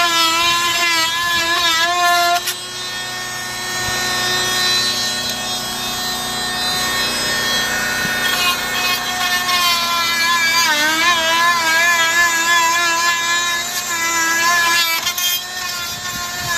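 Motor-driven power tool running under load, its pitch wavering, dipping and recovering as it works. It runs quieter for a few seconds after the start, then picks up again.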